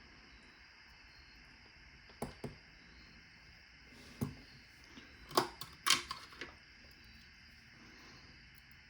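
Metal parts of an American Lock 1100 padlock being handled during disassembly: a few scattered light clicks and taps, then a quick cluster of sharper knocks about five to six and a half seconds in.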